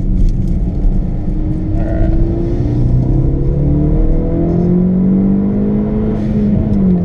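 Hyundai Veloster Turbo's turbocharged four-cylinder, with aftermarket intake and Flowmaster exhaust, heard from inside the cabin under full acceleration: the pitch climbs through second gear, drops at the shift into third about two and a half seconds in, climbs again to about 5,000 rpm, and falls as the throttle is lifted near the end.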